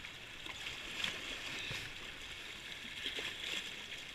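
Small waves washing and lapping among shoreline boulders: a steady watery hiss with a few brief splashes.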